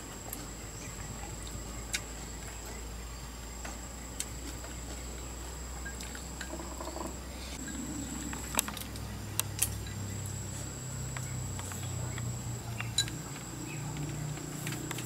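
Forest ambience: a steady high-pitched insect drone, with a few sharp clicks scattered through it and a low hum that grows in the second half.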